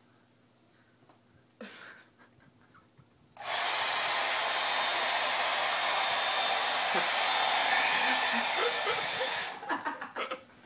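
Hand-held hair dryer switched on suddenly about a third of the way in, blowing steadily for about six seconds, then switched off. Short, broken voice sounds follow near the end.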